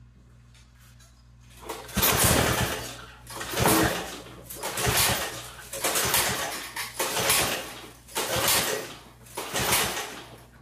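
Recoil pull-starter of a 1968 Toro Snow Hound 20 snowblower engine being yanked repeatedly, choked and at full throttle: about seven pulls at a steady pace, starting about two seconds in. The engine turns over without catching, its carburetor bowl still filling.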